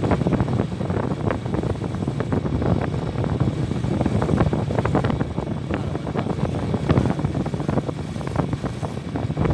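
Honda Tiger's single-cylinder four-stroke engine running as the motorcycle is ridden along, with wind buffeting the microphone.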